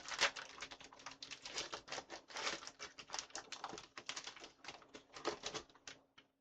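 Pokémon trading cards and their pack wrapping being handled: quick, irregular clicks and crinkles, like cards being flicked through and foil or plastic rustling, which stop near the end.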